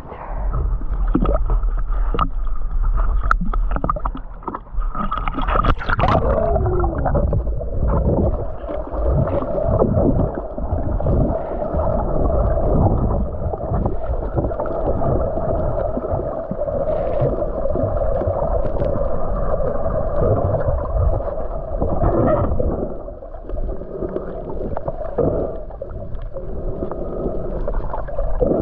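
Muffled water gurgling and sloshing, heard through a camera held underwater while snorkeling.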